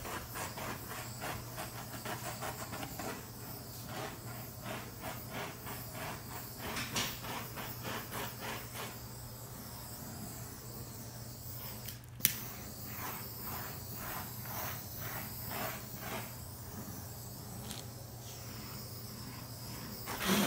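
Handheld torch hissing steadily over wet epoxy resin, pulsing rhythmically as it is swept back and forth to pop surface bubbles. There is a sharp click about twelve seconds in, and a short loud burst at the very end, where the hiss cuts off.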